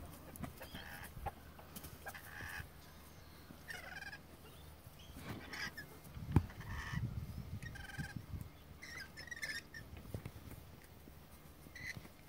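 Chickens clucking in short calls every second or two, with one sharp knock about six seconds in.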